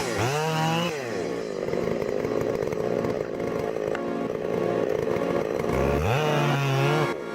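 Chainsaw revving up and down, then running steadily under load as it cuts through wood, and revving again near the end.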